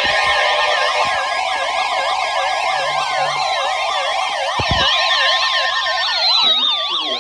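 Several electronic sirens sounding at once, each warbling rapidly up and down in pitch and layered over one another. A few tones slide steadily downward near the end before the sound drops away.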